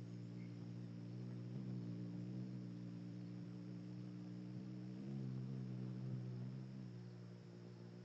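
Hummingbird's wings humming as it hovers at the feeder: a steady low hum that shifts slightly in pitch about one and a half seconds in and again about five seconds in.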